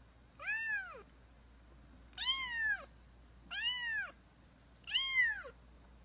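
Kitten meowing four times, high-pitched, each meow rising then falling in pitch, about a second and a half apart.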